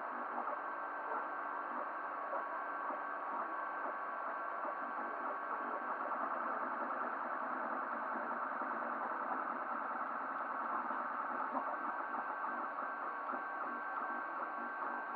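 Desktop FDM 3D printer printing: its stepper motors whir busily as the print head moves over the bed, over the steady hum of the hotend cooling fan.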